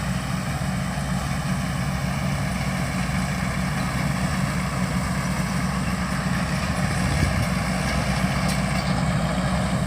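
Rice combine harvester's diesel engine running steadily, heard up close from on board the machine as it moves slowly.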